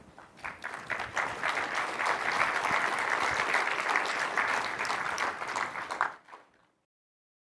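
Audience applauding, swelling over the first second or two, then cut off suddenly about six seconds in.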